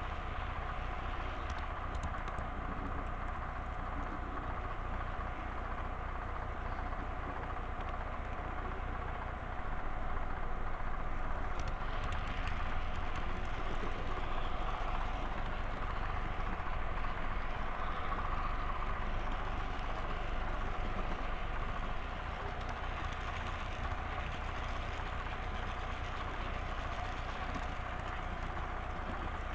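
Model train running along the layout track: a steady mechanical hum from the locomotive and the rolling cars, a little louder for about twelve seconds in the middle.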